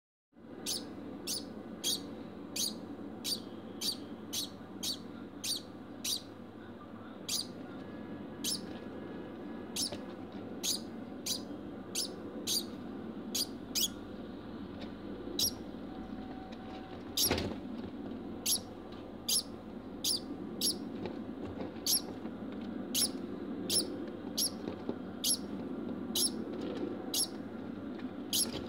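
A degu barking after mating: a long run of short, sharp, high-pitched barks, roughly two a second, with a few brief pauses. One sharper, louder click comes about halfway through, over a steady low hum.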